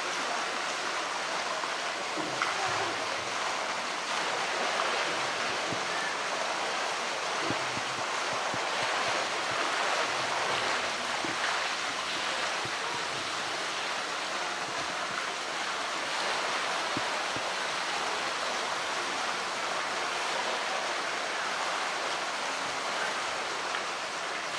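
Steady rush of water pouring into a pool, an even splashing flow with no pauses.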